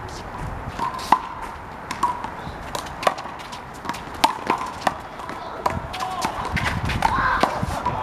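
Rubber handball (big blue ball) slapped by hand and smacking off a concrete wall and court in a fast rally: a string of sharp, irregular slaps and bounces, busier near the end.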